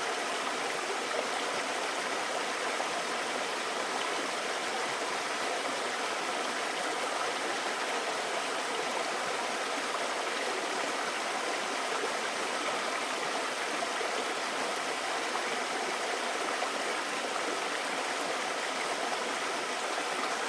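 Mountain valley stream flowing in a steady, unbroken rush of water.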